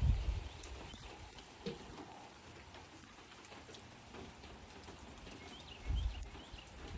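Steady rain falling, with two low thumps on the microphone, one at the start and one about six seconds in. A few short high chirps come near the end.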